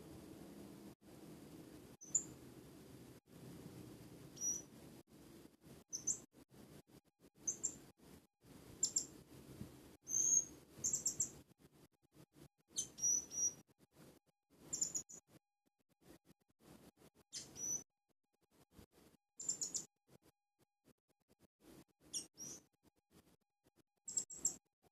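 Blue-crowned hanging parrot (serindit) giving short, very high, thin chirps, singly and in quick pairs, every second or two: a newly kept decoy bird practising its calls.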